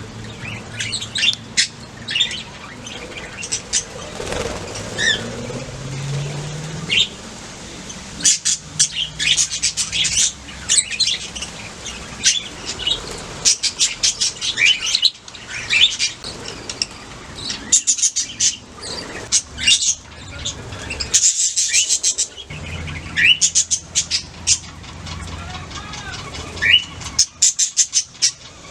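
Budgerigars chirping and chattering, with many short, rapid calls and clicks in irregular bursts over a faint low hum.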